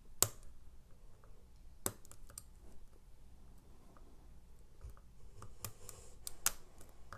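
Scattered small sharp clicks and taps of a lock pick and tension tool working the sliders inside an Evva ICS lock, a handful of separate clicks with the loudest about a quarter second in and another cluster near the end.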